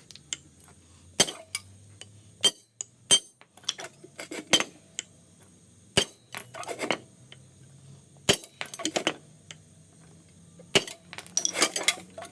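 Hammer blows on a steel axle shaft set on an anvil, driving the wheel joint and shaft out of the hub: several sharp metallic clanks at irregular intervals, with bursts of smaller rattling clinks between them.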